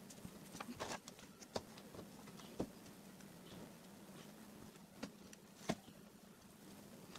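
A few light clicks and taps of the wired board of coin vibration motors being handled, over a faint steady low hum.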